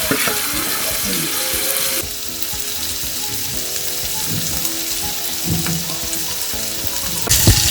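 Boiled goat meat frying with onions and garlic in hot vegetable oil: a steady sizzle that turns quieter about two seconds in and grows louder again near the end.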